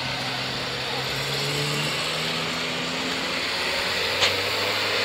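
A car engine running at low revs as the car pulls away, its pitch rising a little and then easing off, over a steady background hiss. There is a single sharp click about four seconds in.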